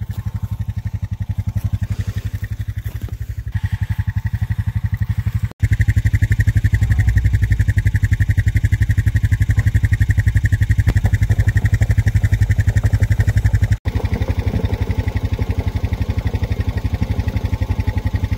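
Four-wheeler (ATV) engine running at a steady, rapid putter, heard close up from the rider's seat. Two brief sudden dropouts break it, about a third of the way in and again near the end.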